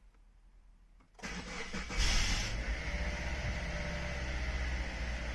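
Subaru Legacy Touring Wagon BRG's 2.0 turbo flat-four being started: about a second in the starter cranks, the engine catches with a loud flare about two seconds in, then settles into a steady run with a faint steady tone. This start-up carries the abnormal noise the owner is recording, after repeated oil-leak repairs and a low oil level.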